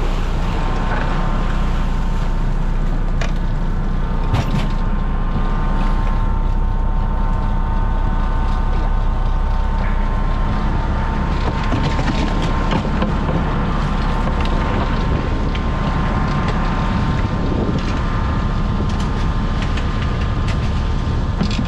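Crab boat's engine running steadily with a steady whine above it, and a few scattered knocks from crab pot gear being handled on deck.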